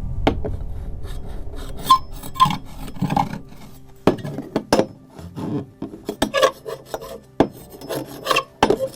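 A foley prop scraped in a run of rasping, irregular strokes with brief squeaks, made to imitate fingernails scratching a window pane for a horror sound effect; it is not very shrill.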